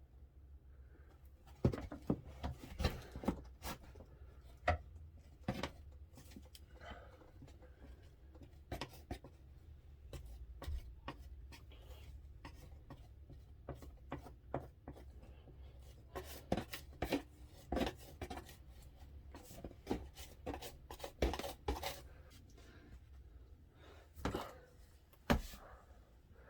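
Irregular scrapes and taps of a hand tool spreading a waxy sealant over a patched wooden floor, with a quieter stretch in the middle.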